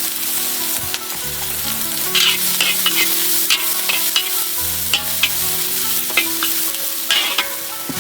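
Food sizzling as it fries, stirred with several scraping strokes of a utensil against the pan.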